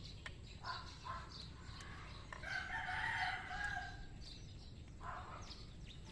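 A rooster crowing once, a long call from about two and a half to four seconds in, with shorter calls just before and after it and faint bird chirps throughout.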